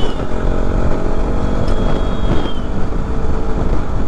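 KTM RC 200's single-cylinder engine running as the bike cruises along, under heavy wind rumble on the microphone. A faint high steady tone sounds for about a second and a half midway.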